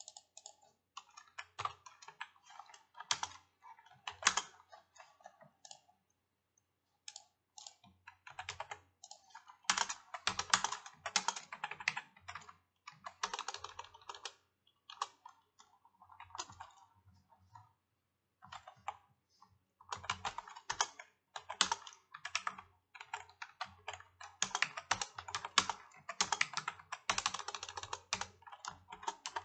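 Typing on a computer keyboard: fast runs of keystrokes, broken by two short pauses.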